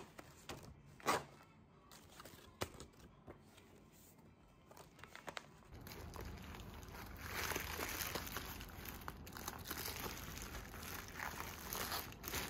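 A few soft rustles and clicks of a stiff paper card being unfolded and smoothed flat, then, from about six seconds in, steady crinkling and rustling of a sheet of plastic bubble wrap handled by a small child's hands.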